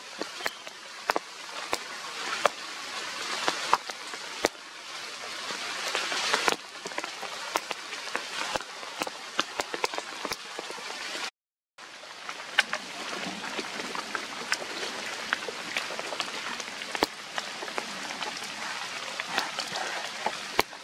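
Rain pattering steadily, with many scattered sharp drips and taps over it. The sound drops out completely for about half a second around the middle.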